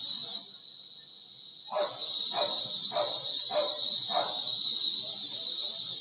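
Cicadas calling: a dense, high, steady buzz that breaks off about half a second in and starts again near the two-second mark, with a lower pulse repeating a little under twice a second.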